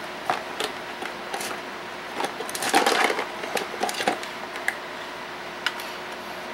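Small metal hardware and a nut driver being worked by hand: scattered sharp clicks, with a run of rapid rattling clicks from about two to four seconds in, over a steady background hum.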